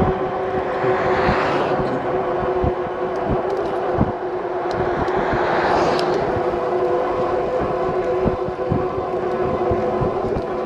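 Electric bike's hub motor whining steadily while riding, with wind buffeting the microphone in low thumps. Two vehicles pass, one about a second in and one about five seconds in.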